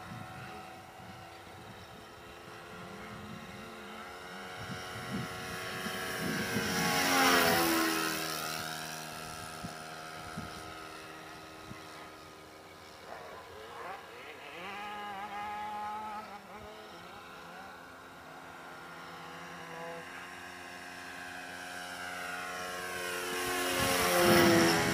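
HP VT21 four-stroke glow engine, with a rotary valve in the head, running at full throttle in a radio-control model plane on two low passes. The engine note grows loud and drops in pitch as the plane goes by, about seven seconds in and again near the end, and runs as a quieter steady drone in between.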